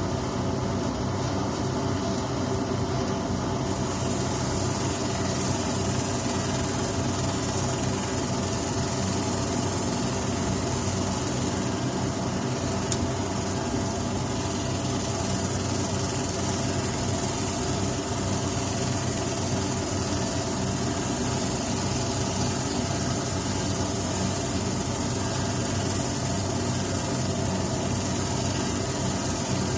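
Down-jacket recycling machine running steadily: a hum of many steady tones from its motors under an even rush of suction air. A higher hiss joins about four seconds in, and there is one short click about thirteen seconds in.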